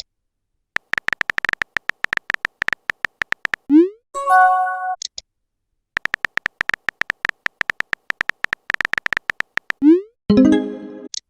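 Messenger-app sound effects: a rapid run of synthetic keyboard-typing clicks, then a short rising 'send' blip and a chiming message-notification tone. The sequence plays twice.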